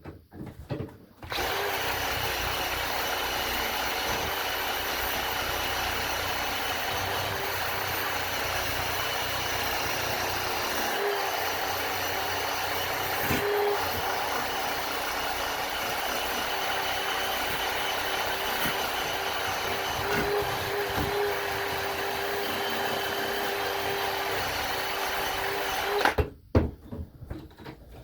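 A handheld power tool running steadily with a constant motor tone as it strips paint from an old metal hinge. It starts about a second in and cuts off near the end, followed by a few knocks.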